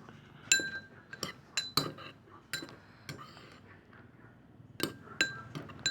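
Stirrer clinking against the container while stirring slime: about eight irregular strikes, each ringing briefly, as the glue and liquid detergent mixture thickens.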